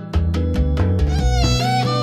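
Instrumental soundtrack music: a quick, steady percussive beat over a deep bass line, with a wavering violin melody coming in about halfway through.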